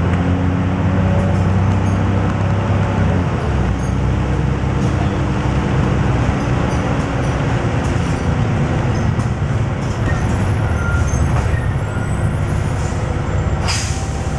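Dennis Dragon double-decker bus running on a wet road, heard from inside on the upper deck: a low engine drone for the first few seconds, then steady road and tyre noise. A brief sharp click comes near the end.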